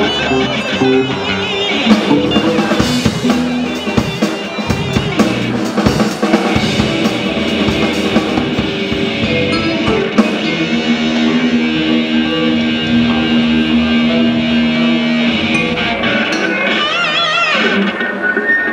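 Live rock band playing on stage: amplified electric guitar and bass with a drum kit. Drum hits are heavy in the first half, then long held guitar notes ring out, as in a pre-show tune-up and soundcheck.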